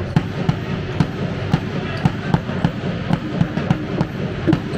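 Repeated thuds of a handball bouncing and players' shoes on a sports-hall floor, a few impacts a second and unevenly spaced.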